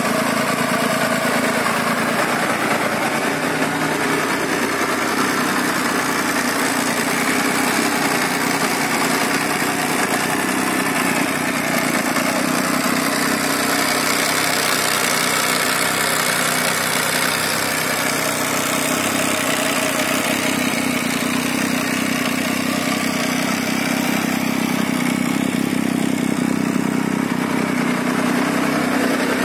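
Benelli Tornado Tre 900's three-cylinder engine idling steadily, in neutral, with no revving.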